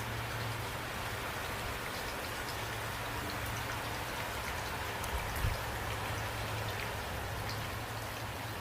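Steady rain falling, with scattered individual drop ticks over an even hiss and a low steady hum underneath. One short low thump comes about five seconds in.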